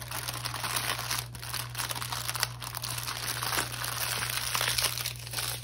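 Thin plastic bags crinkling and rustling as a handful of small bags of diamond-painting drills is stuffed back into a larger plastic bag. It is a continuous crackle of quick little clicks that stops near the end.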